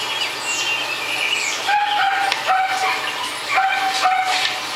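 A dog barking in a run of about four short, pitched barks starting about a second and a half in, over songbirds chirping.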